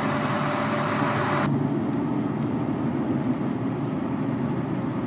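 A car driving along a road: steady engine and road rumble. About a second and a half in, the hiss on top drops away suddenly and the rumble goes duller, as heard from inside the cabin.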